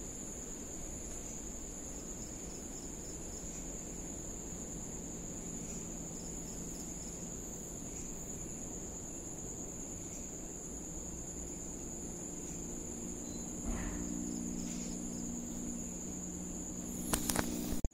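Crickets trilling steadily, one unbroken high tone under a low hiss. A faint low hum joins about two-thirds of the way in, and a quick cluster of sharp knocks comes near the end.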